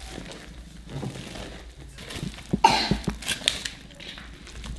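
Wooden stick stirring and working a thick cassava-flour dough in a metal bowl: irregular knocks and scrapes of the stick against the bowl, with a cluster of louder knocks about halfway through.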